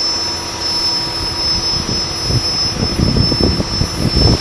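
Light modified pulling tractor's engine idling at the start line with a steady high turbo whine; from about two seconds in, an uneven low rumble grows stronger.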